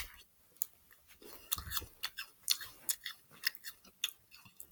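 A mouthful of crunchy green apple being chewed: irregular crisp crunches and wet clicks.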